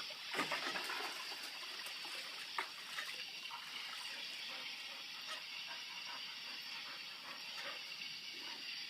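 Water running steadily like a tap or shower, with a few small splashes in the first few seconds.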